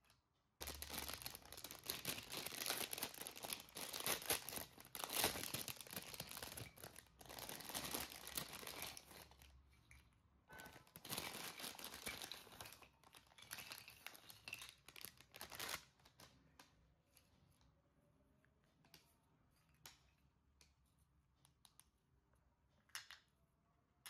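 Packaging being torn and crumpled by hand: a long spell of crackling, a short pause about ten seconds in, then more crackling, followed after about sixteen seconds by a few light clicks.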